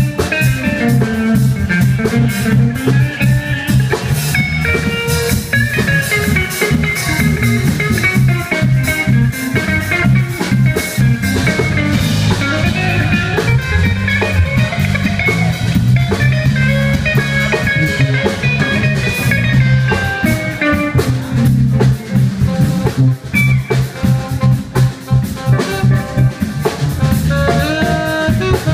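Live small swing band playing: electric guitar over a drum kit and electric bass.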